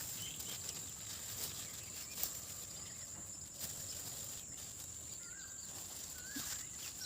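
Outdoor ambience: a steady high-pitched insect drone, with short bird chirps in the second half and a few faint clicks.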